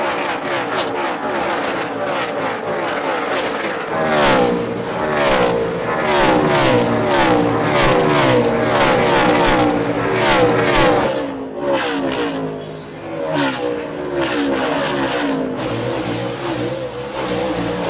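NASCAR Sprint Cup cars' V8 engines at racing speed, several cars going past in quick succession with the engine pitch rising and falling as each goes by. There is a short dip in level about twelve seconds in, and then a few more cars pass.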